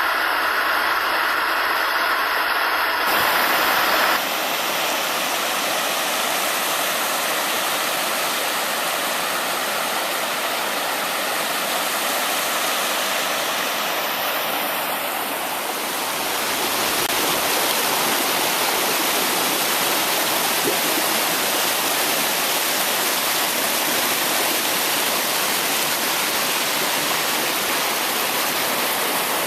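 Water rushing over the Pedernales Falls as a steady, dense rush of noise. Its tone shifts about three to four seconds in, then it holds steady.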